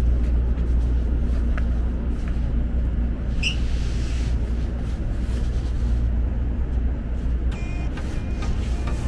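Steady low rumble of a Tokaido Shinkansen train running, with a brief high squeak a little over three seconds in.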